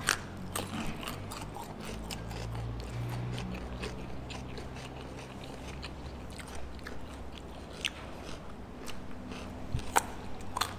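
Close-up eating sounds of raw cucumber being bitten and chewed: irregular crisp crunches and wet chewing, with a faint steady low hum behind.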